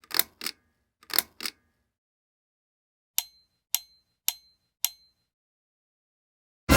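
Two quick double knocks about a second apart, then four short metallic pings about half a second apart, each with a brief high ring.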